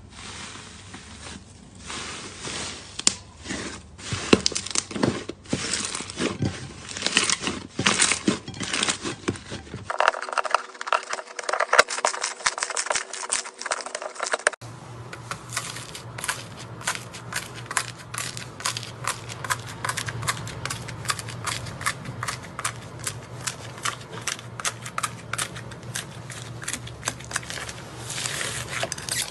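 Slime being squeezed and worked by hand, giving dense crackling and popping clicks. The texture changes abruptly about ten seconds in and again about five seconds later.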